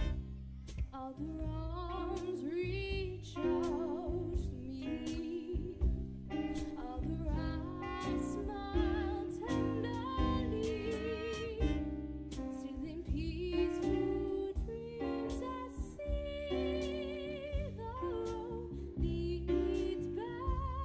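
A live band playing: a female singer with a wide vibrato over drum kit and bass.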